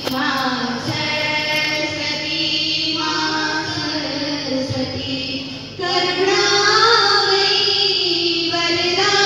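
A group of young women singing together into hand-held microphones over a PA system, in a slow melody with long held notes. The singing gets louder about six seconds in.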